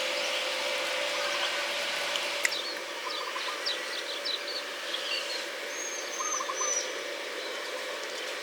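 Small birds chirping in short, quick notes and brief trills over a steady hiss and a faint hum.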